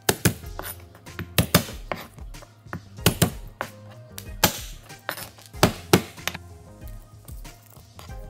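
Garlic cloves being crushed under the flat of a broad knife blade on a cutting board: a hand strikes the blade, giving about ten sharp thwacks, several in quick pairs, over background music.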